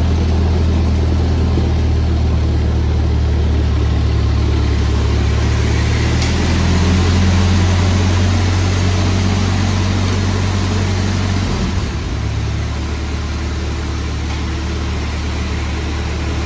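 1948 Ford 8N tractor's four-cylinder flathead engine running steadily. Its pitch shifts about six seconds in, and it drops back to a slower, slightly quieter idle about twelve seconds in.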